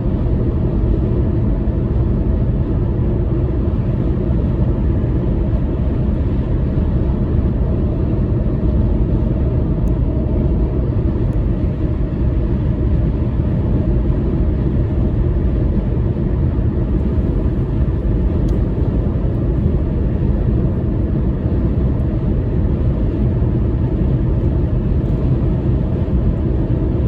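Steady low road and engine rumble inside a car's cabin while it cruises on the highway.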